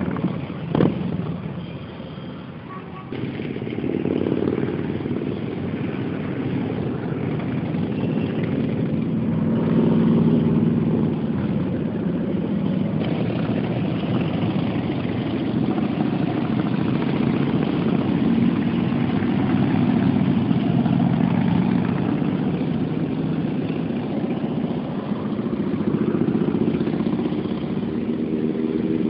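A procession of motorcycles riding past one after another, their engines rumbling, swelling and fading as groups of bikes go by. A short knock sounds about a second in. The sound comes through a camera phone's microphone.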